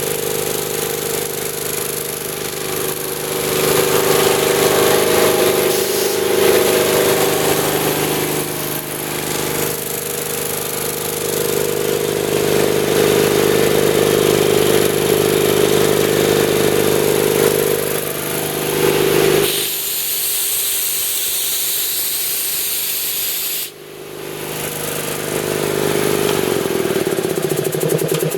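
Ingersoll Rand 7.5 hp two-stage air compressor, its belt-driven pump and electric motor running steadily under load. About 19 seconds in the pump stops and air hisses out; the hiss cuts off briefly a few seconds later, then starts again.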